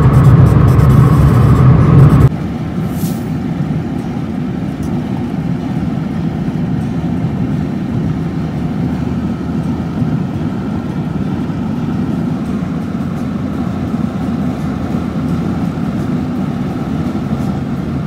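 Steady road and engine noise heard from inside a car cruising on a freeway. It is louder and heavier in the low end for the first two seconds, then cuts suddenly to a quieter, even rumble.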